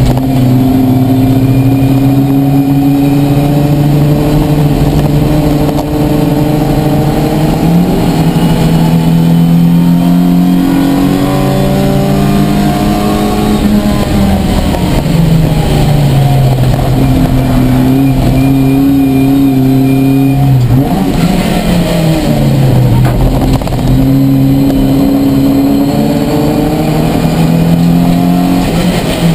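Ford Fiesta race car's four-cylinder engine heard from inside the stripped, caged cabin under hard acceleration. Its note climbs steadily through each gear and drops sharply at the shifts and lifts, several times over.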